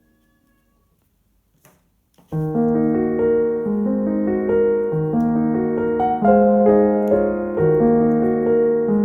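Near silence, then background piano music starts suddenly about two seconds in, a gentle melody of held notes over a repeating bass.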